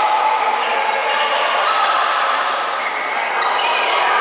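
Badminton hall during play: a steady noisy hall background with short squeaks of shoes on the court floor and a few sharp racket hits on the shuttlecock, the last near the end.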